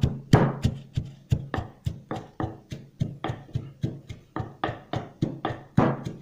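Wooden pestle pounding shaved black summer truffles in a wooden mortar: a steady run of dull knocks, about three a second.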